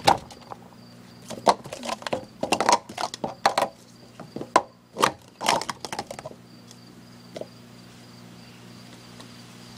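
Plastic Speed Stacks sport-stacking cups clacking as a 3-6-3 stack is built up and taken back down, a rapid run of clicks and clatters for about six seconds. After that it goes quiet apart from crickets chirping.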